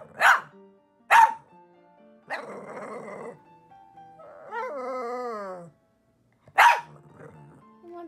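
Boston terrier barking: sharp single barks about a third of a second in, at about a second, and again near the end. Between them come a longer buzzing sound and a wavering, falling call.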